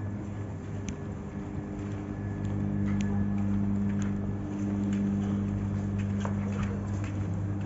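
A steady low machine hum with evenly spaced overtones, a little louder after about two and a half seconds, with a few light footsteps and clicks over it.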